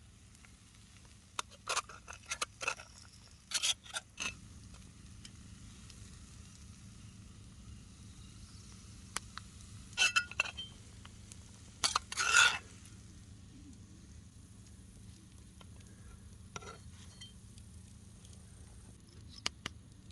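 Metal cooking utensil clinking and scraping against a pan in short clusters, over a faint steady hiss.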